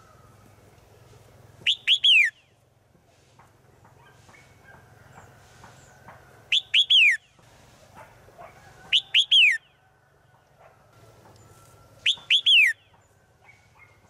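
Red-whiskered bulbul calling: four loud phrases a few seconds apart, each of three quick whistled notes sliding downward. The uploader presents it as a female calling to males. Faint chirps of other birds sound between the phrases.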